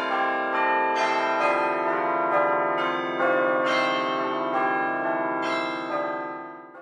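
Bells ringing a slow melody: a new note struck every half second to a second, each ringing on under the next. The sound fades out near the end.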